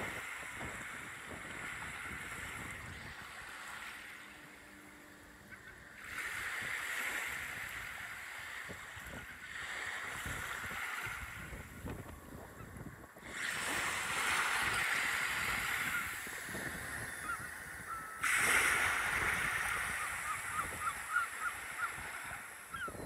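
Surf breaking and washing up a sandy beach, a continuous rushing that swells and fades, with wind on the microphone. The level jumps abruptly a few times.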